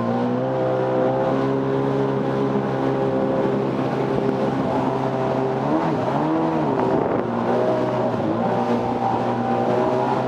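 Jet ski engine running steadily, with a brief rev up and back down about six seconds in.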